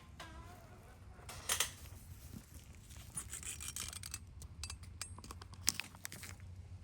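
Faint handling noise: scattered light clicks and knocks, the sharpest about a second and a half in and again near the end, over a low steady hum.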